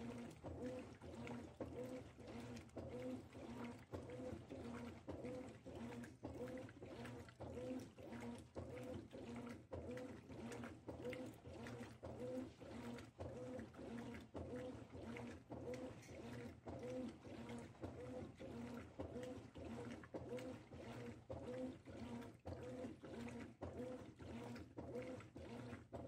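Consul CWE13AB 13 kg top-load washing machine agitating a duvet in water on its duvet cycle: the agitator drive makes a short humming pulse on each back-and-forth stroke, about three strokes every two seconds, over a steady motor hum and the slosh of water.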